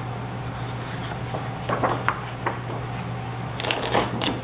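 Sheets of 12x12 patterned scrapbook paper being handled: a few brief rustles around the middle, then a louder swish near the end as the top sheet is slid aside to show the next. A steady low hum runs underneath.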